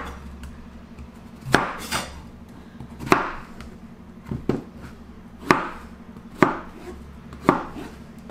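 Chef's knife slicing through a zucchini and knocking on a plastic cutting board: single sharp cuts at an uneven pace, roughly one a second, some in quick pairs.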